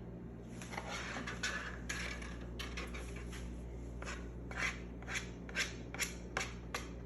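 A spoon scraping brownie batter out of a mixing bowl in short, repeated strokes, with sharper scrapes in the second half.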